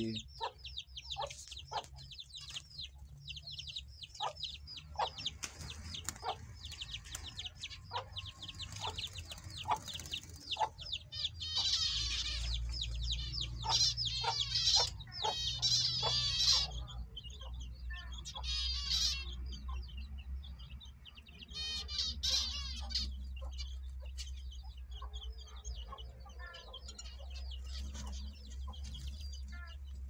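Aviary birds calling: a constant stream of short, high chirps from small finches, with louder bursts of rapid twittering song about 12 to 17 seconds in and again about 22 seconds in, over a mixed background of fowl.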